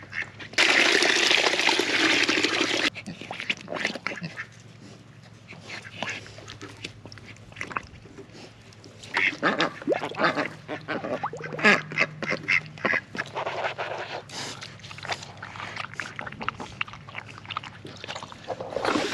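Water poured into a pig's water pan for about two seconds, then the pig drinking and blowing bubbles in the water, in many short irregular bursts.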